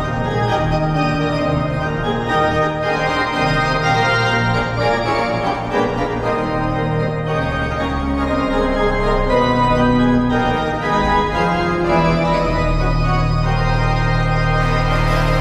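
Music with sustained organ chords that change every second or so.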